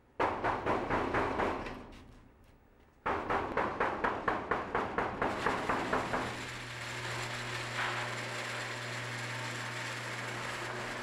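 Sectional metal garage door rolling along its tracks, its rollers clattering rhythmically at about five clacks a second in two runs; the first fades away, the second stops about six seconds in. A steady low hum follows.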